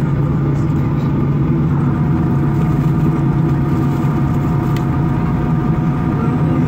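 Steady cabin noise of a Boeing 737-800 on the ground, heard from a seat over the wing: its CFM56 turbofan engines idling, a constant low hum with several held tones.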